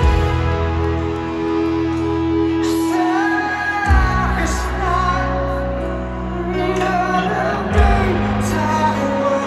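Rock band playing live through a stadium sound system. Sustained keyboard and bass chords change about every four seconds, and a lead vocal comes in about three seconds in.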